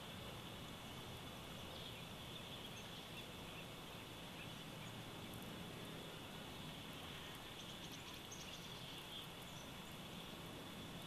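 Faint, steady outdoor nature ambience dubbed over silent footage: a continuous high-pitched hiss with a few faint chirps.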